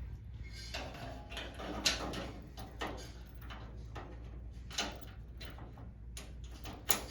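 Padlocks being fitted into the slots of a projector cage: irregular clicks, clinks and short scrapes of metal, with sharper clicks about two, five and seven seconds in.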